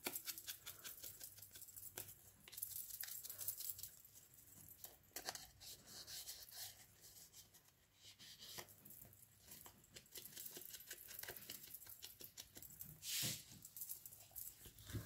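Foam ink blending tool dabbed and rubbed along the edges of a paper pocket: faint, quick scratchy pats of foam on paper mixed with paper rustling, with a louder scratchy rustle about 13 seconds in.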